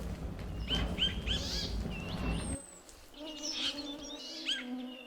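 Siberian jay giving a series of short, hooked chirping calls. A low rumble of wind noise under the first half cuts off suddenly about halfway through, leaving a faint low hum behind the calls.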